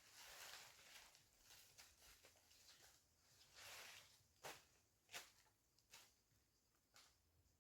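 Near silence with faint rustling swishes and a few soft, sharp clicks or taps.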